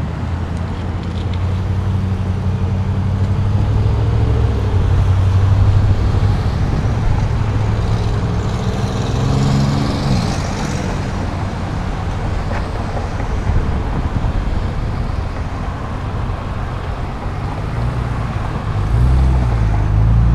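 Road traffic: engines of queued cars and trucks running close by, with one engine's pitch rising and then dropping about halfway through and another wavering near the end, over a steady rush of noise.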